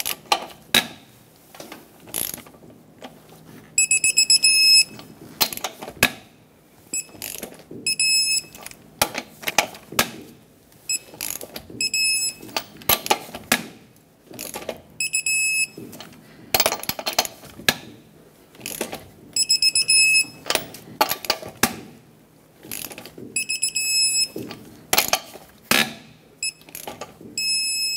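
Digital torque wrench ratcheting lug nuts tight, with quick clicking strokes. Every few seconds the clicks are broken by a short run of high beeps, the wrench signalling that the nut has reached its set torque of 148 ft-lb. This happens about seven times.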